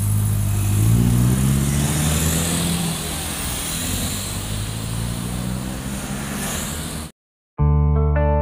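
Toyota Innova 2.0 petrol's four-cylinder engine running through an aftermarket Omega muffler, pulling away with the exhaust note rising in pitch over the first few seconds, then mixing into passing motorcycle and street traffic. About seven seconds in it cuts off abruptly, and guitar music starts half a second later.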